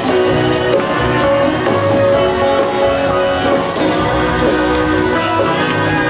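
Instrumental intro of a song played live: strummed guitar over bass and other instruments, steady and loud, before the vocals come in.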